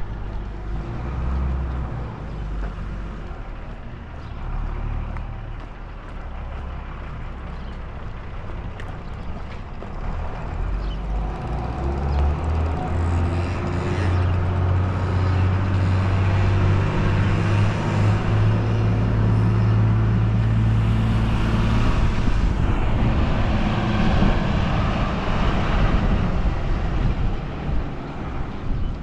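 A motor vehicle's engine running close by, its low hum growing louder through the first half and then holding steady.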